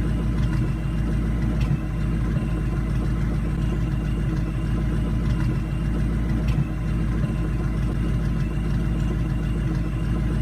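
Supercharged 4.6-litre two-valve V8 of a New Edge Ford Mustang GT idling through a catless X-pipe and Borla ATAK exhaust with an uneven exhaust beat. The engine is misfiring.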